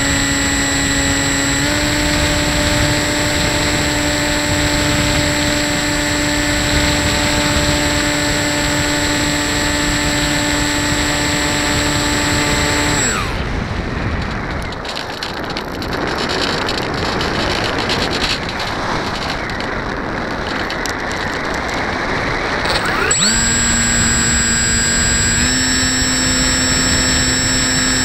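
Electric motor and propeller of a foam RC plane whining at a steady pitch, with wind rushing over the onboard camera. About thirteen seconds in the motor cuts out and only the wind rush is left while the plane glides. About ten seconds later the motor spools back up with a rising whine and settles at a slightly higher pitch.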